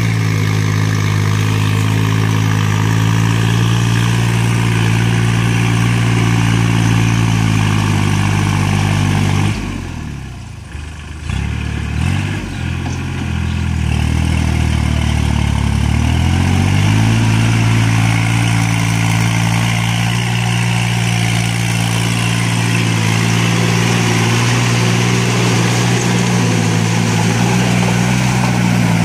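Kubota tractor's diesel engine running under load while driving a rear rotary tiller through wet paddy mud. About ten seconds in the engine note drops lower and quieter, then climbs back up to its steady working speed a few seconds later.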